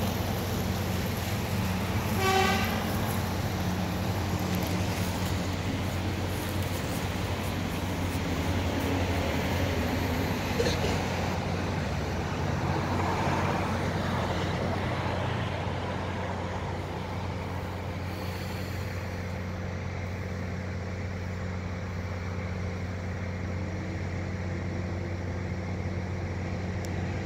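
Steady low hum of a vehicle engine idling in stopped traffic, with a short horn toot about two seconds in.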